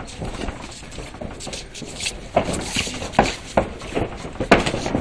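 Boxing gloves landing in an amateur bout: several sharp, short thuds in quick succession, clustered from about two seconds in, the loudest near the end.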